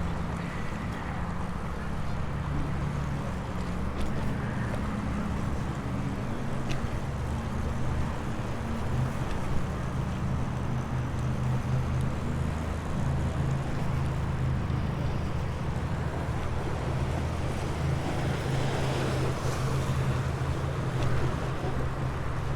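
Steady low rumble of road traffic mixed with wind on the microphone, with a few faint clicks.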